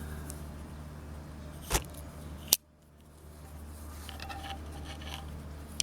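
Two pocket knives being handled, with a couple of sharp metallic clicks, the second one louder, and a few fainter clicks later, over a low steady hum.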